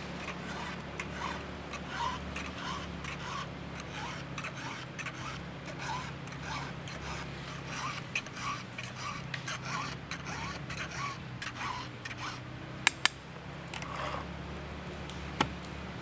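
Round file rasping across the cutters of a Stihl 661 chainsaw's Oregon 3/8-pitch full-chisel chain, short strokes about twice a second, with a steady low hum underneath. Near the end come a few sharp clicks, two close together and one more shortly after, the loudest sounds here.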